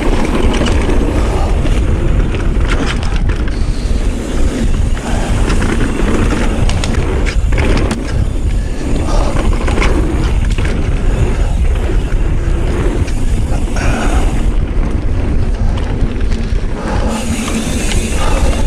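Mountain bike riding fast down a dirt trail: steady rushing wind on the microphone, tyres rolling over packed dirt, and frequent rattles and knocks from the bike over bumps.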